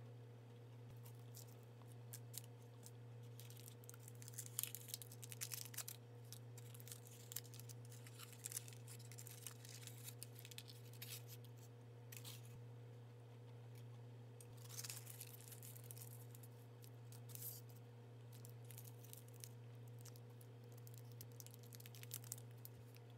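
Thin foil chocolate wrappers crinkling and rustling in handling, in several short bursts of crackle, over a steady low hum.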